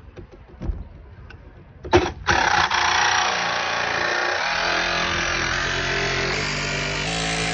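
A few light knocks, then a jigsaw starts about two seconds in and runs steadily, cutting the van's sheet-steel roof to enlarge the hole for the roof fan.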